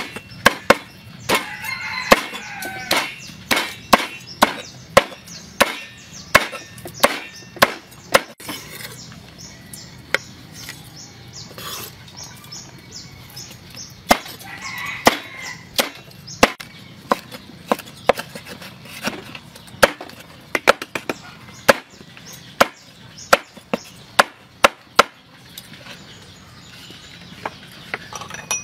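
A cleaver chopping roasted pork on a wooden chopping board: sharp, irregular knocks about one or two a second, with a sparser stretch of a few seconds partway through.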